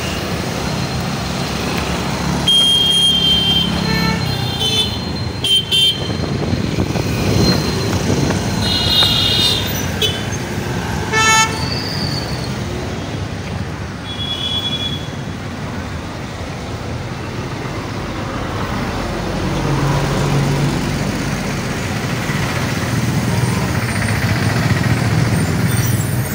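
Busy city street traffic: motor scooters and cars running past, with several short horn toots, the clearest about eleven seconds in.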